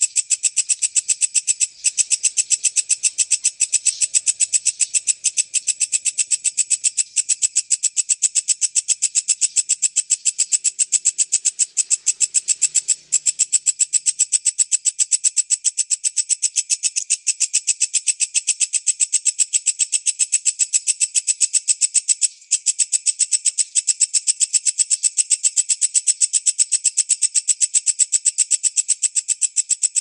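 Walang kecek bush-cricket stridulating: a fast, dense, unbroken run of high-pitched pulses, pausing only briefly about 2, 13 and 22 seconds in.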